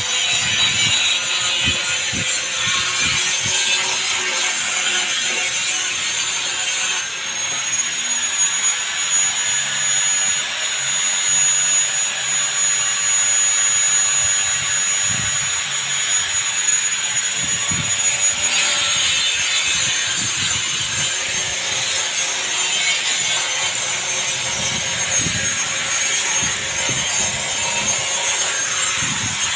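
A workshop power machine running steadily with a continuous grinding, rubbing noise. A high steady whine grows stronger for about eleven seconds in the middle, then eases back.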